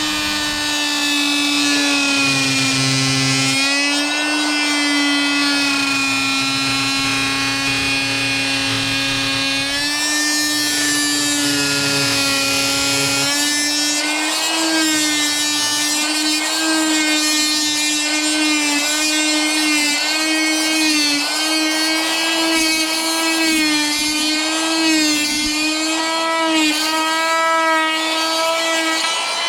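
Harbor Freight oscillating multi-tool with a Ridgid wood-and-metal blade cutting into onyx: a loud, steady high buzz whose pitch wavers slightly as the blade bears into the stone.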